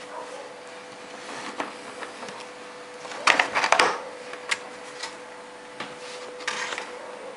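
Cardboard motherboard box and its packaging being handled and opened: scattered rustles and knocks, with a burst of scraping and rustling about three seconds in, over a faint steady hum.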